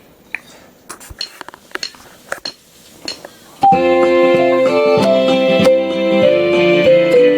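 Casio LK-280 electronic keyboard: a scattering of light clicks and short blips, then about three and a half seconds in it suddenly starts playing loud music with sustained chords and a changing melody.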